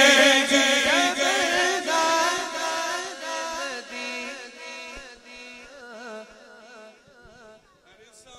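Male voice singing a naat into a microphone over a PA, a long, ornamented melodic line that fades away gradually over several seconds.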